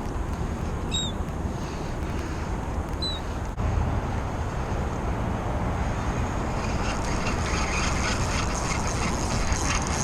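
Steady outdoor rumble and hiss, with two short high chirps about one and three seconds in and faint scratchy clicking building over the last few seconds.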